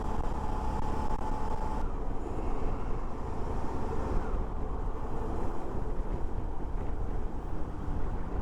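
Suzuki V-Strom 650's V-twin engine running steadily under way, mixed with wind and road rumble on a helmet-mounted lavalier mic.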